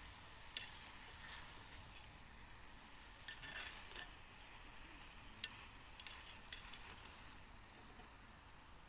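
A metal utensil clinking and scraping against a cooking pot, a few sharp clinks spread through, over a faint steady sizzling hiss.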